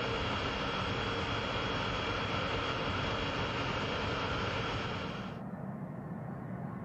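A-10 Thunderbolt II's twin TF34 turbofan engines at takeoff power on the takeoff roll: a steady jet noise with a high whine, heard from the cockpit. About five seconds in it cuts to the quieter, duller sound of an A-10's engines heard from beside the runway as the jet rolls for takeoff.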